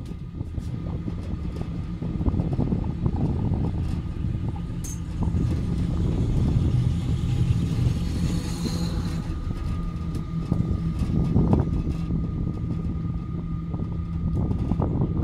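Aerial cable car cabin running along its cables: a steady low rumble with a faint hum, growing louder and brighter for a few seconds in the middle as the cabin passes over a support tower.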